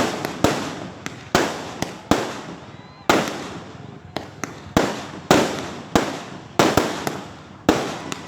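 Fireworks going off in quick succession: sharp bangs, one or two a second, each trailing off with a crackling decay.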